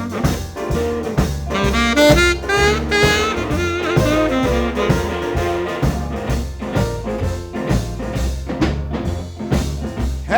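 Background music: a jazz/R&B instrumental break with a saxophone solo over bass and drums.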